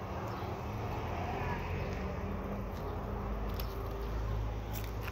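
A steady low outdoor rumble that grows slightly louder about a second in, with a few faint clicks.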